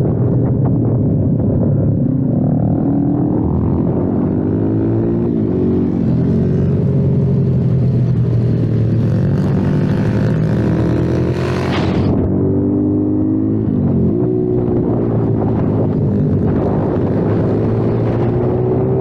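Kayo TT 140 pit bike's single-cylinder four-stroke engine under way on track, the pitch climbing as it accelerates and then dropping sharply, three times over. A burst of wind hiss builds and then cuts off suddenly a little before halfway.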